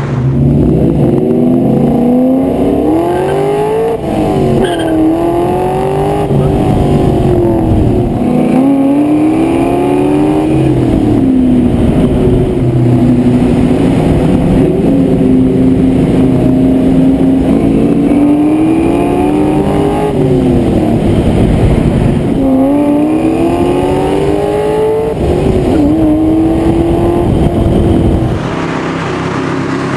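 2004 Ford Mustang Mach 1's 4.6-litre V8 accelerating hard, its pitch climbing and dropping back at each gear change, with a steady cruising stretch in the middle. Near the end the sound cuts to a steadier, lower engine hum.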